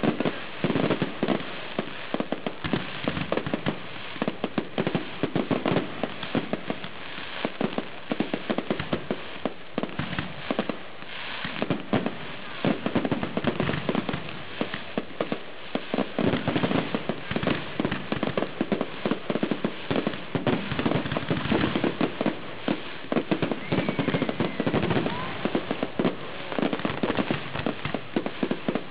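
Fireworks display: aerial shells bursting in a dense, unbroken barrage, many bangs a second with no pause.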